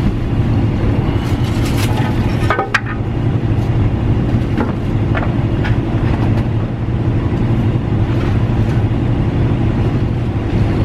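Steady low droning hum with light clicks and rustles over it, the clicks mostly in the first few seconds.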